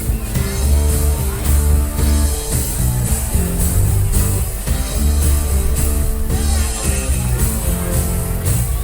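A rock band playing with electric guitars, bass and drums, at a steady driving beat.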